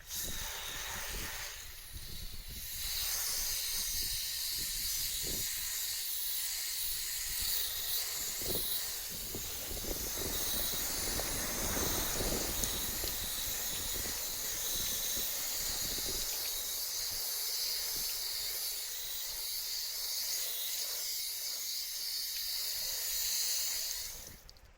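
A steady, loud hiss that starts abruptly and cuts off near the end, with a few faint low knocks along the way.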